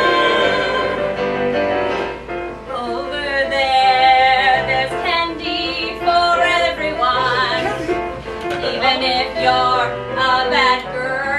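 A song sung live with instrumental accompaniment: held, wavering vocal notes over steady accompanying notes, with no break in the music.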